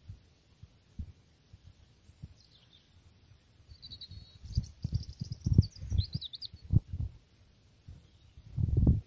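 Wind gusting across the microphone in low, irregular rumbling thumps, loudest in the middle and again just before the end. A small bird gives a quick run of high chirping notes in the middle.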